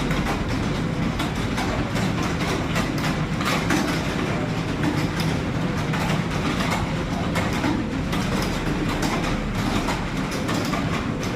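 Computer keyboards being typed on rapidly during a typing speed test: a dense, unbroken clatter of keystrokes over a steady low hum.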